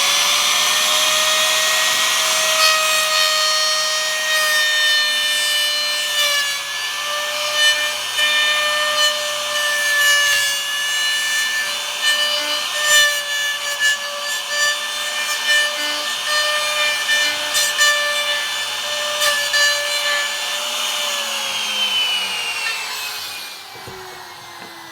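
Electric trimmer router with a straight bit running at speed and cutting into wood, a steady high whine with rough, irregular cutting noise as it levels the floor of a mortise. About 21 seconds in it is switched off and winds down with a falling whine.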